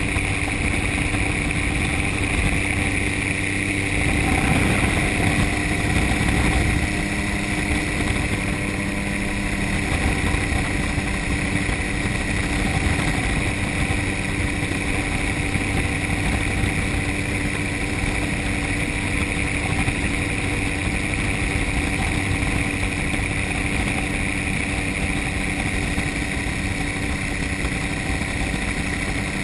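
Gyrocopter engine and propeller running steadily in flight, with a constant rush of noise over it. The sound swells briefly a few seconds in, then settles.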